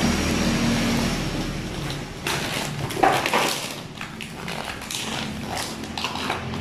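Plastic bubble wrap and packaging rustling and crinkling, with light knocks of boxed parts and bottles being shifted about in a cardboard carton.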